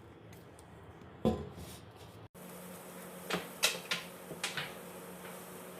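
A thump, then after a brief break several short, sharp knocks and clicks of household handling, like a cupboard door or kitchen things being moved, over a low steady hum.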